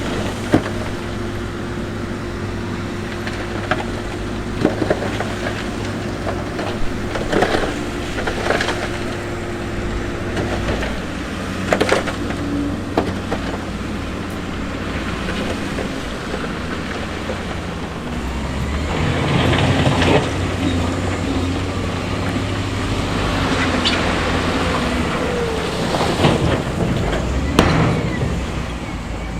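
Diesel engines of heavy construction machinery running steadily, with the engine note shifting about a third of the way in and getting louder past the middle. Sharp knocks and clanks come at irregular intervals throughout.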